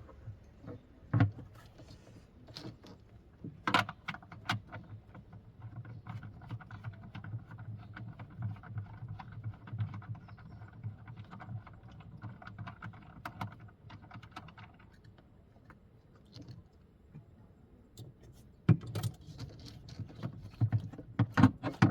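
Small metal parts and tools clinking and knocking at irregular moments, with a cluster of louder knocks near the end. A faint steady hum runs underneath for several seconds in the middle.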